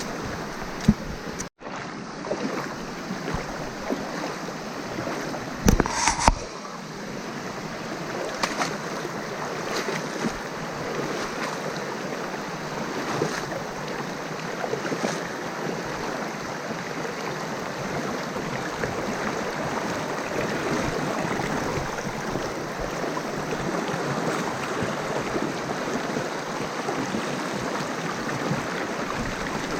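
Jungle stream water rushing steadily over rocks, with a couple of louder sudden sounds about a second in and again around six seconds.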